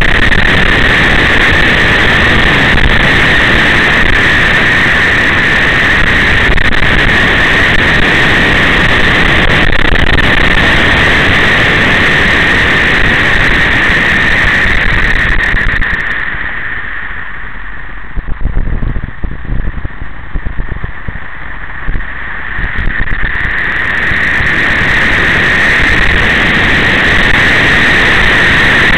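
Vehicle driving along a road, heard as loud, steady wind and running noise on a mounted camera's microphone. About halfway through the sound drops and turns muffled for several seconds, then comes back to full level.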